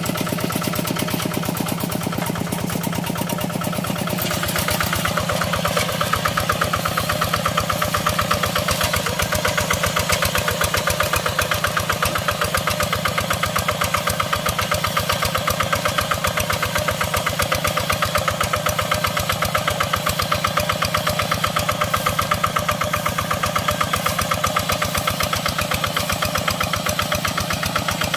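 Quick Impala hand tractor's single-cylinder diesel engine running steadily with a rapid, even thudding beat; it grows a little louder about five seconds in.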